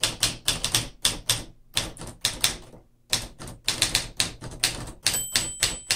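1954 Smith Corona portable manual typewriter being typed on: a quick, steady run of sharp key strikes at about five a second, with a brief pause about halfway through.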